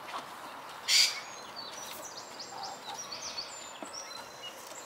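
Birds chirping in the background, many short high chirps through the second half, with a brief rustle of feathers about a second in as the bantam rooster's wing is handled.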